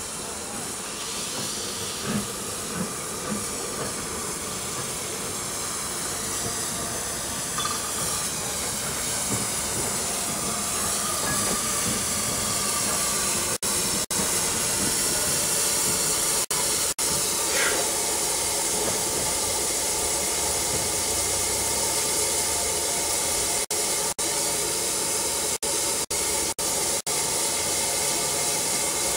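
LNER K4 2-6-0 steam locomotive No 61994 'The Great Marquess' coasting slowly into a platform and drawing to a stand. A steady hiss of steam grows louder as it comes near, with a short squeal a little past halfway.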